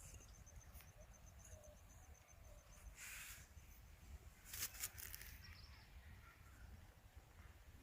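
Near-silent outdoor ambience with a faint, fast, even high-pitched insect chirping that stops about four seconds in, and two brief rustling noises about three and five seconds in, the second louder.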